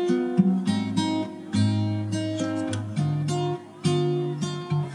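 Background music: acoustic guitar playing a run of plucked and strummed notes.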